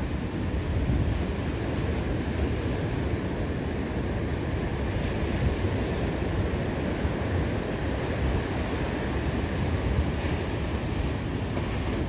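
Ocean surf: large waves breaking and a steady wash of whitewater, with wind buffeting the microphone and adding a low rumble.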